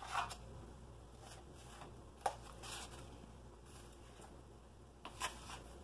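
Knife blade pushing diced bell peppers off a plate into a bowl of cream cheese: a few faint scrapes and soft patters as the pieces drop, about four separate touches.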